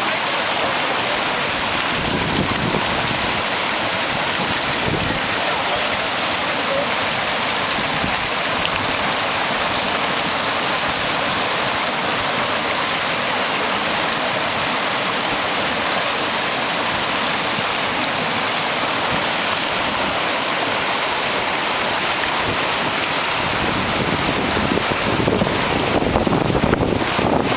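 Fast mountain river rushing over rocks, a steady even rush of water. About four seconds before the end, wind begins buffeting the microphone.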